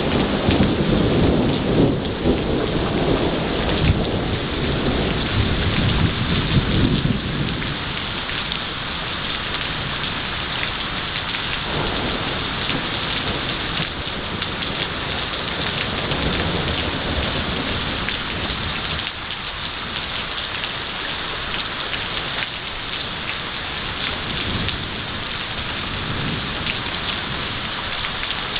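Heavy rain falling steadily in a thunderstorm, with a long low rumble of thunder that fades out about seven seconds in. Fainter distant rumbles come and go over the rain after that.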